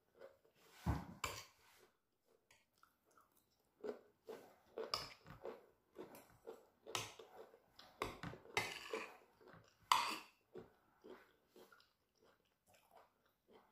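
Close-miked chewing and mouth sounds of a person eating fried plantain and vegetables in pepper sauce, irregular and moist, with occasional sharper clicks of a fork against the plate.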